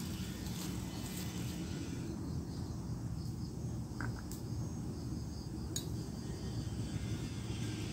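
A few light clicks of chopsticks against a small bowl during eating, over a steady low rumble.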